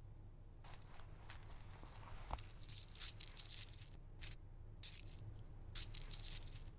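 Loose coins jingling and clinking in a run of short bursts as they are handled.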